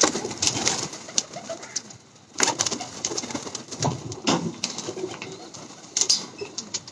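Domestic high-flying pigeons cooing in a wire-mesh loft, with scattered sharp clicks and wing flaps, one of them about six seconds in.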